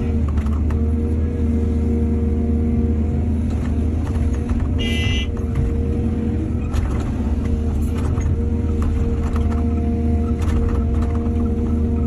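Heavy diesel engine of an excavator running steadily, with scattered knocks and clatter and a brief high-pitched squeal about five seconds in.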